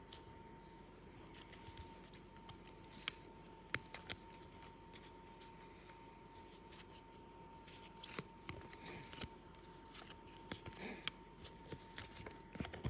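Hockey card packs and cards being handled: scattered sharp clicks and crinkly rustling, busier in the second half, over a faint steady high hum.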